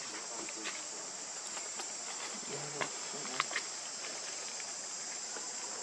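Steady high-pitched chorus of insects, with a few faint clicks.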